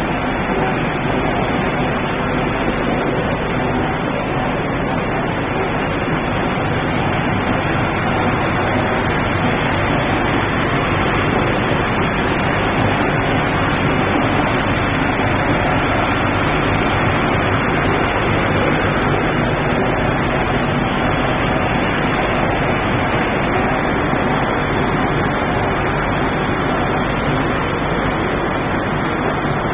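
Sawdust rotary drum dryer line running: a steady, unchanging machinery noise from its fans, motors and turning drum.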